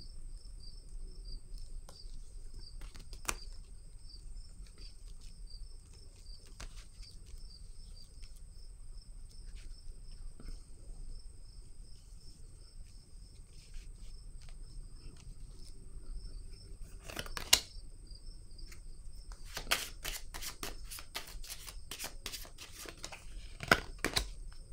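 A cricket chirping in a steady high trill throughout. Over it come scattered light clicks of cards being handled, a sharper snap about two-thirds of the way through, and a quick run of card flicks and snaps near the end.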